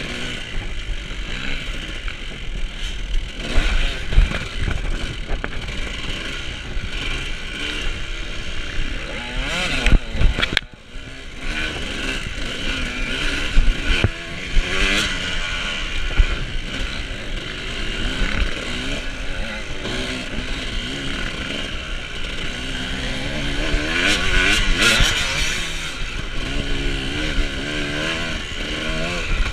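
Dirt bike engine revving up and down continually as it is ridden, its pitch rising and falling with the throttle. There are a few sharp knocks along the way and a brief drop-out about ten seconds in.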